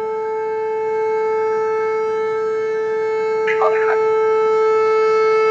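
American Signal T-128 outdoor warning siren sounding a steady tone during a test, getting a little louder in the first second and then holding level.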